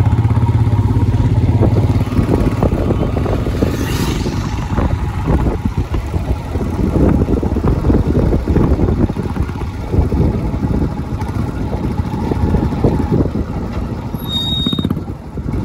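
A motor vehicle running, with loud steady rumbling noise and a low engine hum for the first couple of seconds. A short high tone sounds about fourteen seconds in.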